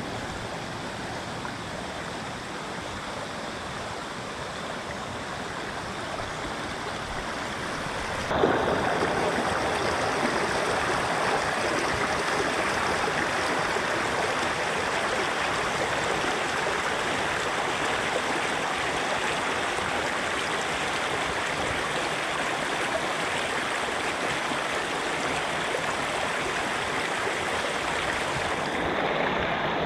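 Shallow rocky river running, a steady rush of water over stones that suddenly grows louder about a third of the way in.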